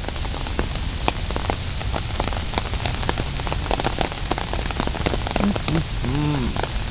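Steady rain falling, an even hiss with many separate sharp drop hits close by. A brief voice-like sound that rises then falls comes near the end.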